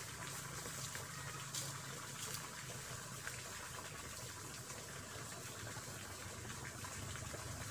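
Shallow stream water trickling steadily.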